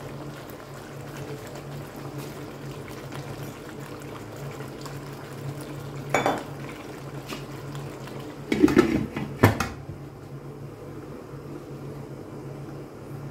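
Kitchenware handling at a wok of potatoes being charcoal-smoked: a metal clink about six seconds in, then a louder clatter ending in a sharp clank near nine and a half seconds as the glass lid goes onto the wok, over a low steady hum.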